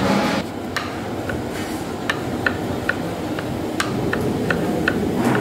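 Kitchen knife chopping tomatoes on a plastic cutting board: sharp taps of the blade striking the board, about two a second and unevenly spaced.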